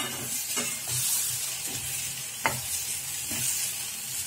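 Chopped vegetables sizzling in a frying pan while a wooden spatula stirs them. A few sharp knocks of the spatula against the pan stand out, about half a second in and again about two and a half seconds in.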